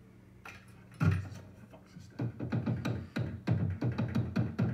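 Background music; a beat comes in about a second in, then turns to quick repeated hits from about two seconds in.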